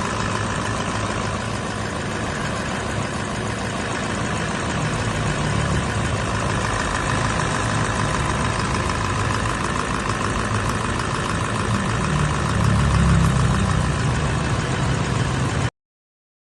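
Toyota Land Cruiser 200-series diesel engine running steadily at idle, the knocking, rough-running fault it was brought in with. The running gets a little louder about twelve seconds in, then cuts off suddenly near the end.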